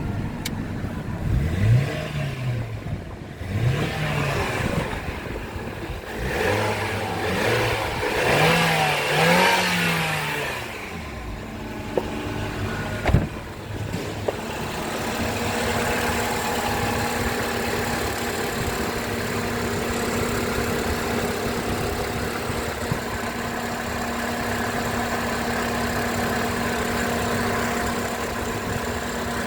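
Nissan MR20-DE 2.0-litre four-cylinder engine blipped up and back down several times in quick succession, then settling to a steady idle. A single sharp knock comes about thirteen seconds in.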